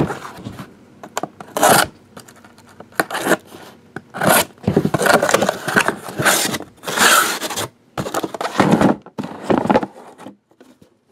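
Cardboard shipping case being opened by hand: a series of irregular scraping and rubbing sounds as the flaps are pulled back and the boxes inside shift against the cardboard.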